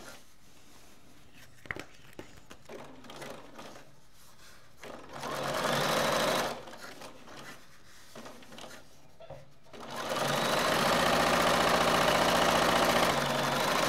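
Electric sewing machine top-stitching through fabric and vinyl: a short run of stitching about five seconds in, then a pause, then running steadily from about ten seconds on.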